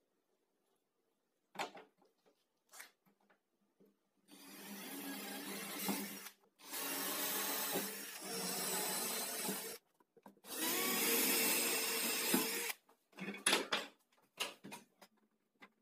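Cordless drill running in three bursts of two to three seconds each, fastening small wooden blocks to a plywood tabletop. A few light knocks of wood being handled come before and after.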